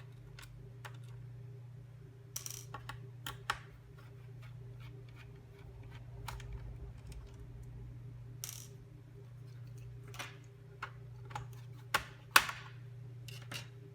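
Small clicks, ticks and a few short scrapes of a screwdriver and the plastic RAM cover being worked on the underside of a Samsung R730 laptop, as the cover's two screws are undone and the cover is lifted off. A steady low hum runs underneath.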